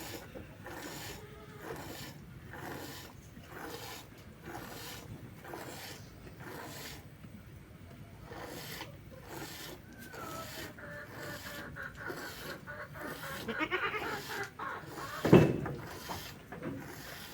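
Milk squirting into a container as a goat is hand-milked by squeezing the teat, a short hiss about twice a second. A goat bleats once loudly about fifteen seconds in.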